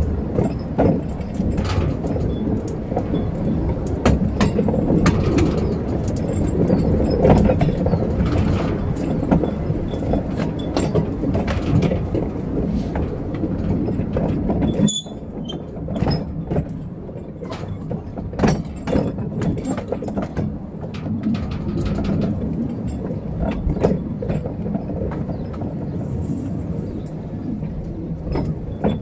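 Wheels of a narrow-gauge battery-electric locomotive and four-wheeled wagon rolling along the rails, a steady rumble with frequent sharp clicks from rail joints and the points. It turns quieter about halfway through.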